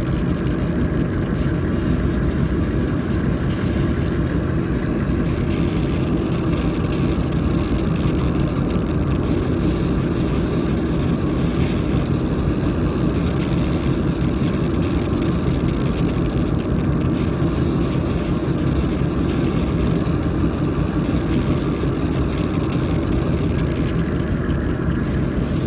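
A 50 W fiber laser engraving machine running: a steady, low mechanical rumble that doesn't change.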